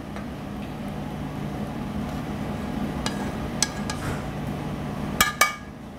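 Metal tongs clinking against a skillet and a ceramic dish as chicken livers in cream sauce are tipped out of the pan: a few light clinks about three seconds in, then two louder ones near the end, over a steady low hum.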